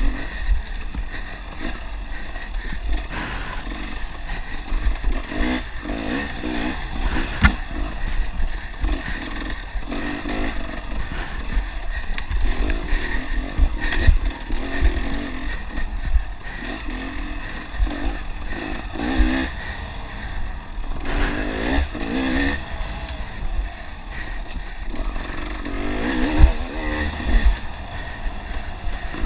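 Onboard sound of a dirt bike engine revving up and falling back again and again as it is ridden hard over rough trail. Clatter runs under it, with a few sharp knocks standing out.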